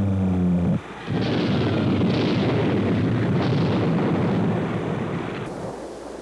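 A low jet drone that breaks off just under a second in, then bombs exploding: several blasts in quick succession merging into one long rumble that eases off near the end.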